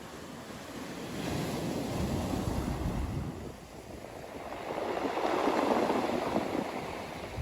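Ocean surf on a beach: two waves break and wash in, swelling up about two seconds in and again, louder, about five seconds in.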